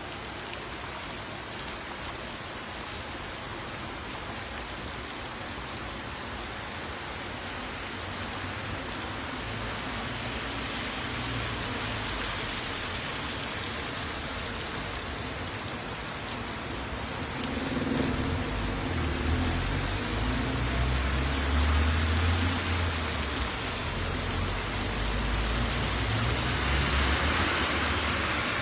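Heavy rain falling steadily, a dense hiss of rain on surfaces that grows slowly louder. A low rumble joins in from a little past the middle.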